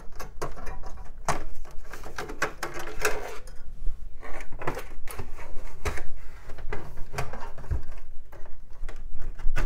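Hands working inside a desktop PC case: irregular clicks, knocks and scrapes of plastic and metal as cables are unplugged from the CD-ROM drive and parts are worked loose, with a couple of duller thumps.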